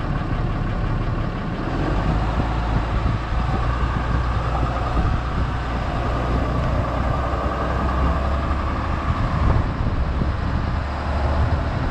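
Pickup truck with a truck camper driving along a road, heard from outside the vehicle: steady engine, tyre and wind noise with a low rumble.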